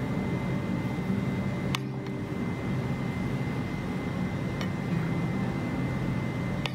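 Steady low mechanical hum, with three light clicks of a spoon touching the glass as milk foam is scooped into it, about two seconds apart.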